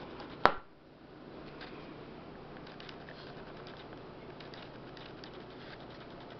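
A single sharp knock about half a second in, over a steady low hiss with a few faint scattered ticks.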